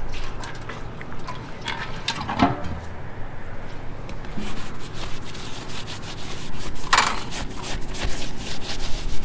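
A cloth towel rubbing and wiping EPDM rubber roofing with solvent cleaner, in irregular scrubbing strokes, one louder about seven seconds in.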